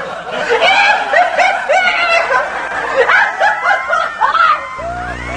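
A person laughing: a run of short pitched laughs, about three a second. A low buzzing hum comes in near the end.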